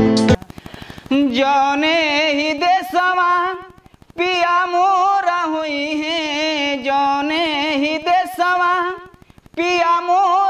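A man singing a Bhojpuri folk song, unaccompanied, in long wavering held notes in three phrases with short breathing gaps. Band music cuts off just as it begins.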